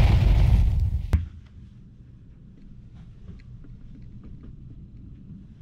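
A loud booming, rushing sound effect plays under an animated logo of a spinning spent cartridge case and cuts off with a sharp click about a second in. Then there is only a quiet low hum with faint scattered ticks.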